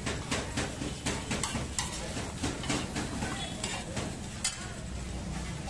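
Metal spatula scraping and clanking on a large flat tawa as beef pieces are stir-fried, with the meat sizzling. The strokes come quickly, about two to three a second, for the first four seconds, with one sharper clack about four and a half seconds in.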